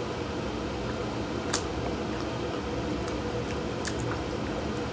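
Close-up wet chewing and mouth sounds of eating a boiled potato in butter sauce, with a few sharp lip smacks.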